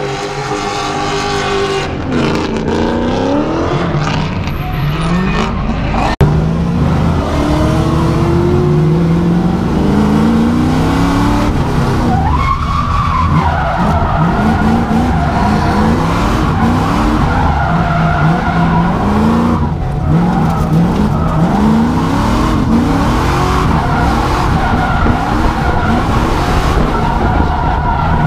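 LS V8 engine of an E36 BMW drift car revving hard, its pitch rising and falling again and again, with tyres screeching through the slides. A single sharp knock about six seconds in.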